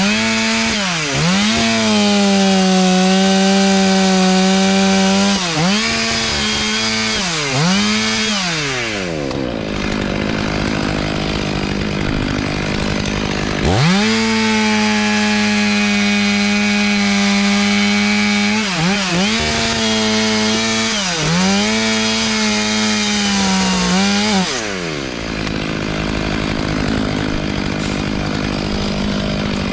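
Chainsaw cutting wood at full throttle in two long runs, its pitch sagging and recovering several times as the chain bogs in the cut. It eases off for a few seconds between the runs and again near the end.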